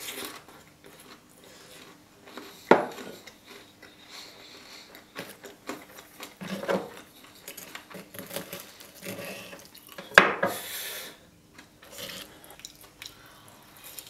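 Metal cutlery clinking and scraping against a wooden board while cutting Nutella-covered waffles, with soft eating sounds between. Two sharp clinks stand out, about three and ten seconds in, the second followed by a short scrape.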